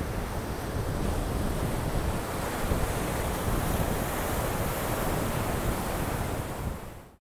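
Rough Gulf of Mexico surf breaking and splashing against a rock jetty, with wind buffeting the microphone in a low rumble. The sound fades out near the end.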